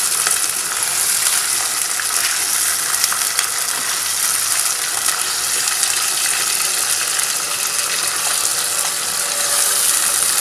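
Mutton pieces frying in plenty of hot oil with golden onion and whole spices, a steady loud sizzle with crackling.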